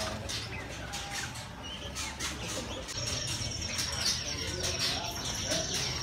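Many caged songbirds chirping and whistling at once, short calls overlapping in a busy chorus. About halfway through a thin, steady high note joins in.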